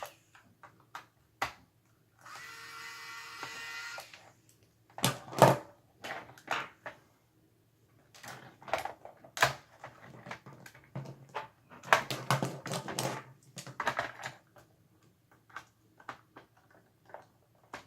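Irregular clicks, taps and knocks of a plastic remote-control case being pried and handled apart with hand tools. A steady whir lasts about two seconds shortly after the start.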